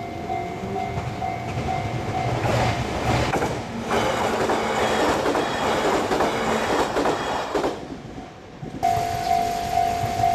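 Japanese level-crossing warning bell ringing in a steady pulsing rhythm as a train passes over the crossing. The train's wheel clatter and running noise build from about two seconds in and drown out the bell, then fall away about eight seconds in. The bell is heard clearly again near the end.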